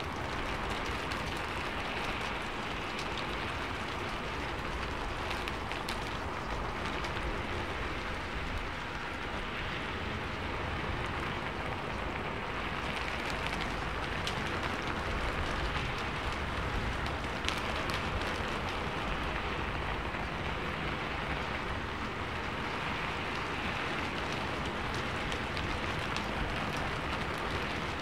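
Steady rain, an even hiss with scattered faint drop ticks.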